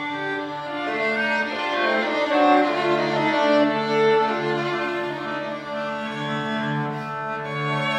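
A string quartet of two violins, viola and cello playing long held bowed notes, with the cello sustaining low notes beneath the moving upper voices.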